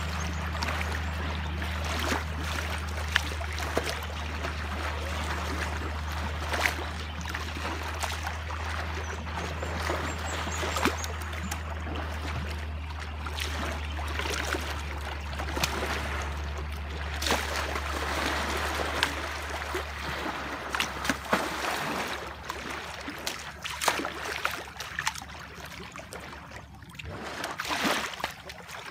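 Elephants splashing and sloshing about in a muddy pool, with many short splashes over a steady wash of water. A steady low hum runs underneath and stops about two-thirds of the way through.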